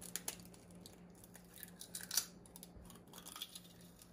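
Faint clicks and crackles of an egg being cracked open over a small glass dish and the dish being handled, with a scatter of small sharp ticks, the busiest about two seconds in.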